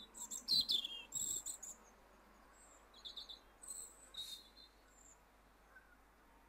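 Small songbirds calling: short high chirps and quick falling notes, busiest in the first second and a half, with a few more calls around three to four seconds in.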